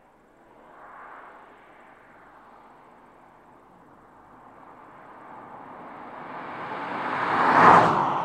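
A BMW 540i sedan driving toward the microphone and past it: a steady noise that builds for several seconds, peaks sharply as the car goes by near the end, then begins to fade.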